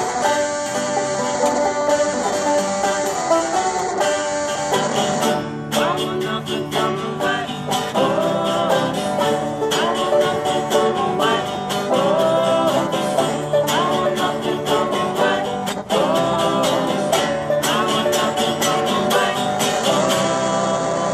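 Banjo and acoustic guitar playing together: rapid picked banjo notes over a strummed guitar in a folk-bluegrass tune.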